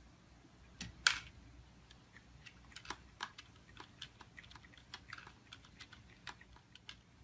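Faint, irregular light clicks and taps of dry kibble against the plastic tray of a cat food dispenser as a cat eats from it, with one louder click about a second in.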